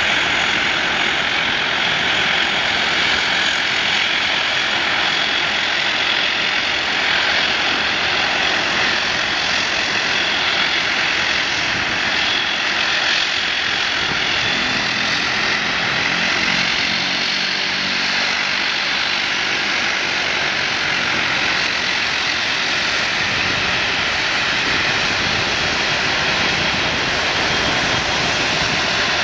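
Cessna 208B Grand Caravan's PT6A turboprop at climb power just after takeoff: a steady high whine over propeller drone, running without a break.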